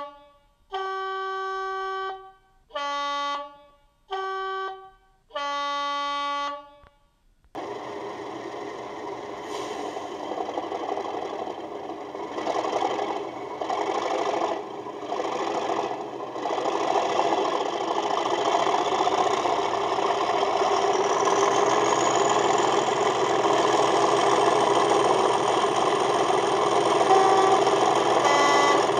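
Sound decoder in an Accurascale Class 37 model locomotive, playing through its speaker: four two-tone horn blasts, alternating low and high, now free of crackle. About seven seconds in, the diesel engine sound comes in and builds steadily louder, with a rising whistle about two-thirds of the way through.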